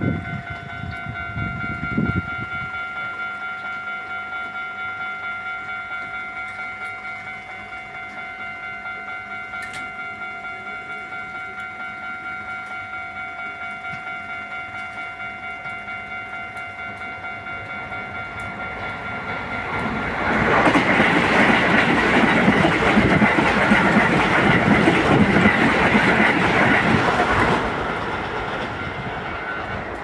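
Japanese railway level-crossing warning bell ringing in a fast, steady repeating clang while the barrier is down. From about 20 s to 27 s an electric commuter train passes over the crossing, its wheels clattering on the rails, louder than the bell, before fading away.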